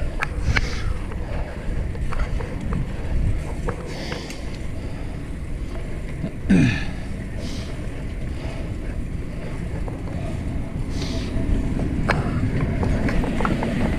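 Wind buffeting the microphone and tyre rumble as a fixed-gear bike rolls along an asphalt street, with scattered light clicks and knocks. About halfway through there is a brief louder sound that falls in pitch.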